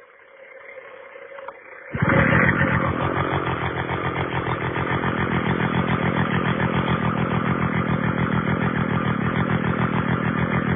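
Sachs-Dolmar KMS4 Wankel rotary-engine chainsaw starting abruptly about two seconds in, then running steadily with a fast, even pulsing beat.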